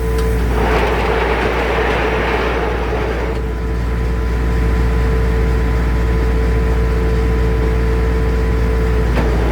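Portable circular sawmill running under power, with a constant low hum and a steady tone. From about half a second to three seconds in, a rasping hiss of the blade cutting through spruce is added, and then the mill runs on steadily.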